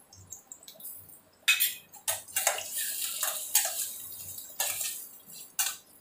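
Steel spoon scraping and clinking against a stainless steel pan while onions and ginger-garlic paste are stirred in hot oil, with some sizzling. The stirring starts about a second and a half in, after a quieter start.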